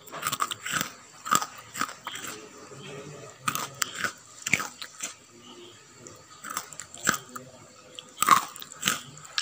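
Crisp fried jackfruit chips being bitten and chewed: irregular sharp crunches, about a dozen, with the loudest near the end.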